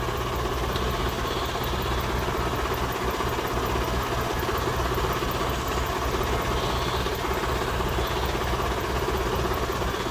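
Kubota DC60 combine harvester's diesel engine running steadily.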